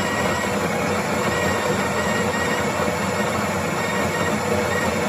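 The built-in conical burr grinder of a Sage Barista Express espresso machine running steadily, grinding coffee beans into a double-shot portafilter, a continuous motor-and-burr whir with a faint steady whine.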